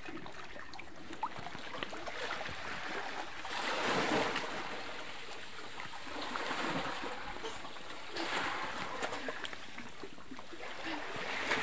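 Small sea waves lapping and washing in shallow water, swelling softly about three times, with scattered small clicks and trickles.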